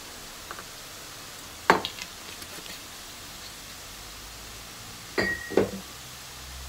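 A glass bottle set down with a sharp knock about two seconds in, with a few small clinks around it, then two softer knocks near the end, the first with a brief high ring.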